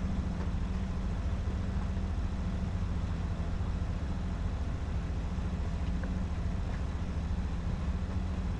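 Sailboat's auxiliary engine idling steadily, a low rumble with a fast even pulse, warmed up after about 15 minutes of running.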